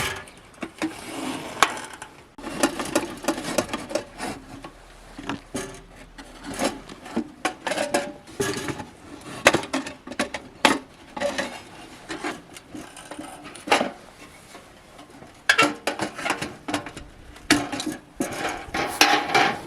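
Wood being worked by hand: irregular knocks, taps and scraping of timber pieces.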